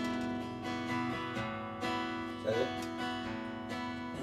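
Acoustic guitar strumming and ringing out as a band plays the closing bars of a country-rock song, with no singing.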